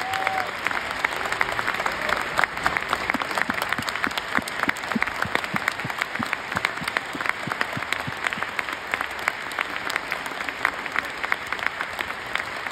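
Theatre audience applauding steadily, a dense wash of clapping with individual sharp claps close by standing out.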